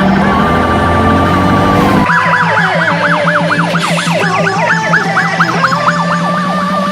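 Fire engine's electronic siren, a Federal Signal Smart Siren, holding a steady wail tone, switching about two seconds in to a fast yelp of quick rising and falling sweeps, then back to a steadier tone near the end. A low steady drone runs underneath.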